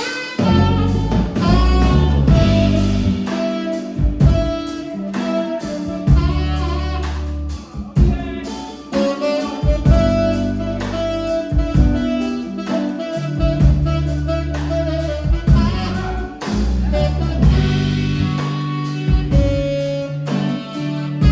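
Instrumental passage of a band song: held lead melody notes over bass, guitar and a drum kit, no vocals.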